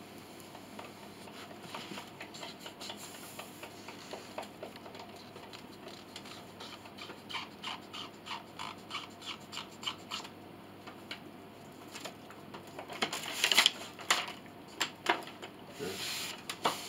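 Small taps, clicks and scrapes of wooden pinblock pieces being handled and fitted on a workbench, with a quick run of light taps partway through and louder scrapes near the end.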